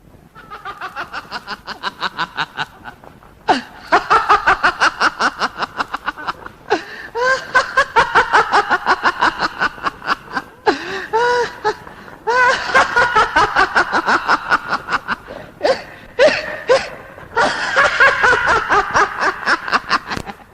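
A person laughing hard in long bouts of rapid ha-ha-ha pulses, about six a second, with short breaks for breath between the bouts.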